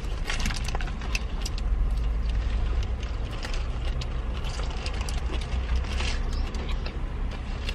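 Steady low rumble of a car cabin, with scattered small clicks and crinkles of chewing and a paper burger wrapper.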